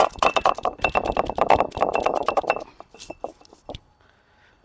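Stone roller crushing green chillies on a flat stone grinding slab: rapid stone-on-stone knocks and crunches for about two and a half seconds, then a few scattered knocks before it stops. The chillies are being crushed coarsely, not ground to a paste.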